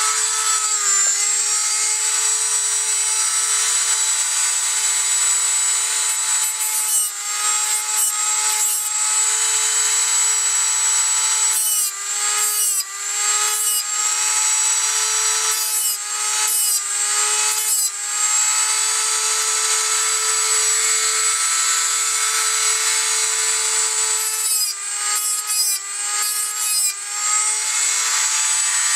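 Dremel rotary tool on a flexible-shaft extension running at full speed with a steady high whine. Its cutoff wheel is dragged in light strokes up the teeth of a steel bow saw blade to sharpen them. With each touch the pitch dips and a gritty grinding joins in, in several short clusters of strokes.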